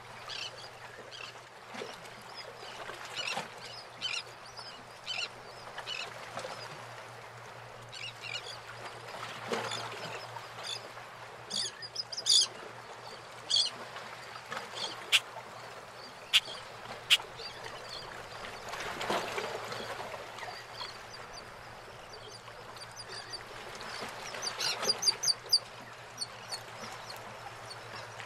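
Harbour water lapping and sloshing around moored fishing boats, with birds calling in short, repeated squawks throughout. A few sharp clicks come about halfway through.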